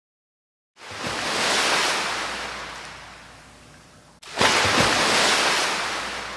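Rushing, surf-like sound effect in two swells. The first builds over about a second and slowly fades; the second starts abruptly about four seconds in and fades again.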